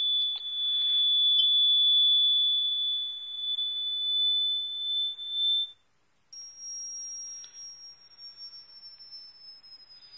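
High-pitched electronic tones played through a JBL Flip 4 Bluetooth speaker: one steady whistle-like tone that cuts off a little before halfway, then, after a short break, a higher tone that slowly falls in pitch.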